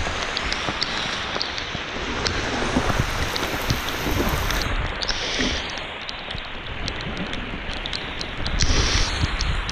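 Heavy rain coming down in a downpour: a steady hiss with many sharp individual drop hits close by.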